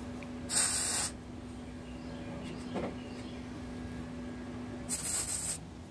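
Wire-feed (MIG) welder laying two short tack welds, each a crackling hiss about half a second long, one about half a second in and one near the end. A steady low hum runs underneath.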